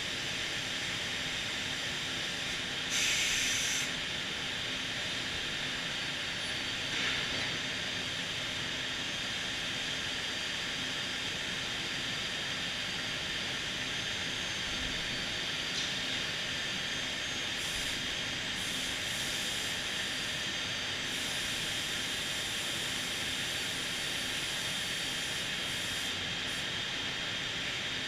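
Homag BAZ CNC panel-processing center running: a steady hiss-like machine noise over a faint constant hum, with a short, louder burst of hiss about three seconds in.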